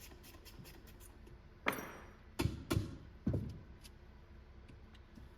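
Four sharp metallic knocks, each with a short ring, from metal fork parts being struck or handled, coming between about one and a half and three and a half seconds in.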